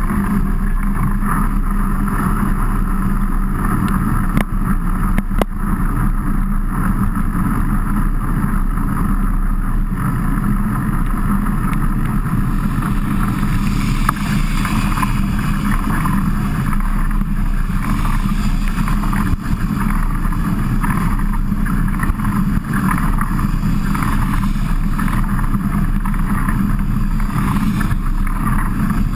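Steady rushing noise of a mountain bike being ridden in heavy rain, picked up by a camera mounted on the bike: wind on the microphone over a low, even rumble.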